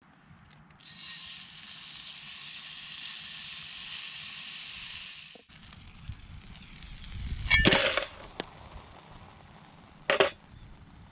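Steak sizzling in a small cast-iron skillet over a campfire, a steady hiss that cuts off suddenly about five seconds in. Then a low rumbling stretch with two short, sharp knocks.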